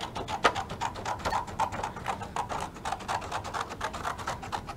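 Scissors cutting a sheet of black construction paper into strips: a steady run of quick, crisp snips, about three a second.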